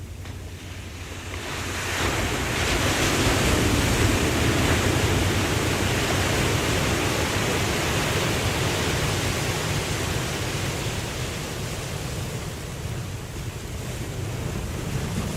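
Ocean wave breaking on a beach: the surf swells about two seconds in, then slowly washes out over several seconds, over a steady low rumble of sea.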